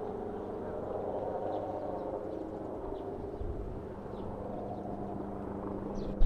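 A steady engine drone made of several held tones over a low rumble.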